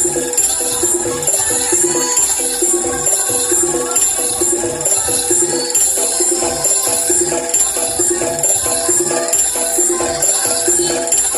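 Loud rhythmic music with a steady, evenly repeating beat and bright jingling percussion over it.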